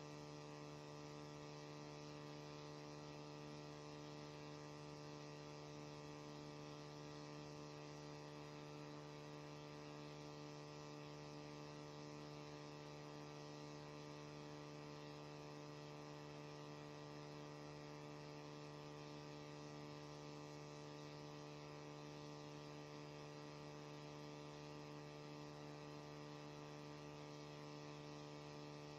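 Faint, steady electrical hum made of several even tones, unchanging throughout, with nothing else heard.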